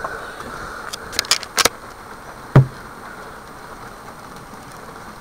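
Steady engine and road noise inside a car's cabin, with a few sharp clicks or rattles about a second in and one loud thump about two and a half seconds in.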